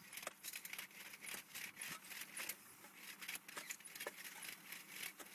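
Wire brush scrubbing an exposed, rusty water pipe in quick, irregular scraping strokes: the pipe is being cleaned ahead of a leak repair clamp.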